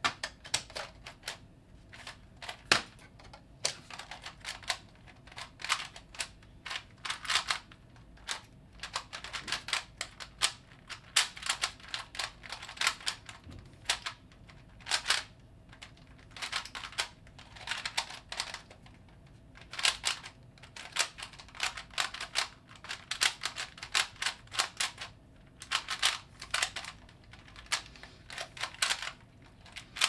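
A 3x3 Rubik's cube turned rapidly with one hand during a speedsolve. Its plastic layers clack in quick runs of clicks, broken by short pauses between bursts of turns.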